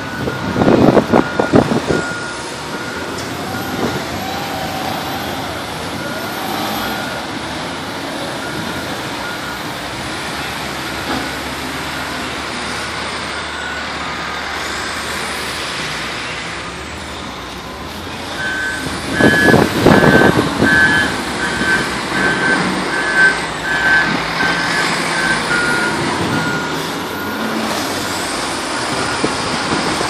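Caterpillar wheel loaders working in the snow: diesel engines running, with reversing alarms beeping about twice a second. Two loud bursts of clattering, about a second in and again around two-thirds of the way through.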